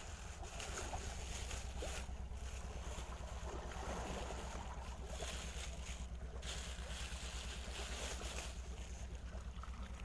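Thin plastic carrier bag crinkling and rustling as a hand rummages in it and pulls a crab out. Underneath is a steady, quickly fluttering low rumble.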